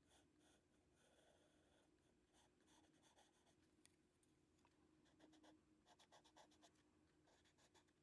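Faint scratching of a pencil on drawing paper in short repeated strokes, quickening to rapid back-and-forth strokes about six seconds in.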